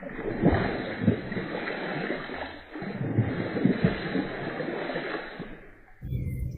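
Repeated heavy splashing at the water surface as a snakehead (toman) strikes and thrashes at the bait, with several sharp splashes over about six seconds; it ends abruptly near the end.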